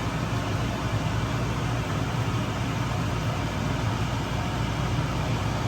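Steady mechanical hum with an even hiss, with no changes or separate knocks.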